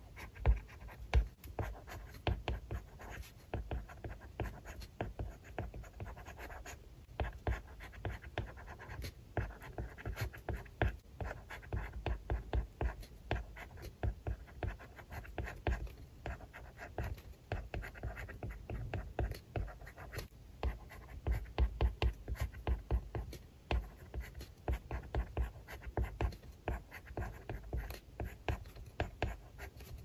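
Plastic stylus tip writing on a tablet's glass screen: a dense run of quick taps and short scratching strokes as each character is written.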